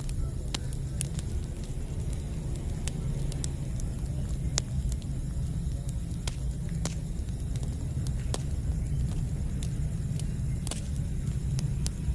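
Campfire burning: a dozen or so sharp, irregular crackles and pops of burning wood over a steady low rumble.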